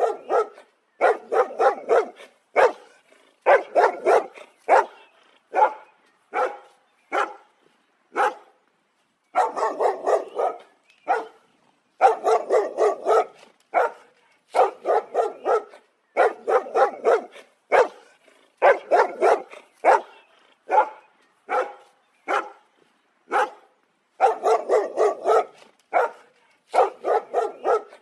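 A dog barking repeatedly, in quick runs of several barks separated by short pauses.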